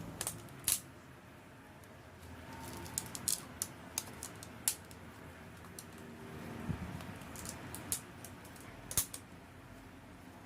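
Irregular light clicks and taps, like small hard objects being handled, about fifteen in all and unevenly spaced.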